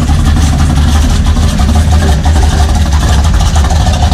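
Lifted pickup truck driving slowly past at close range, its engine and exhaust giving a steady low rumble; the nearest truck is a lifted square-body Chevrolet.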